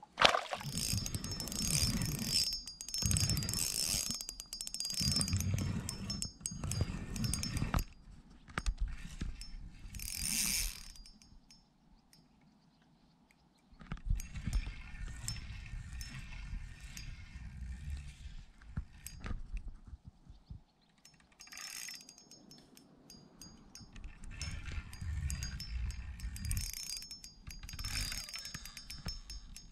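Fishing reel working in several stretches of rapid clicking and whirring, separated by short pauses.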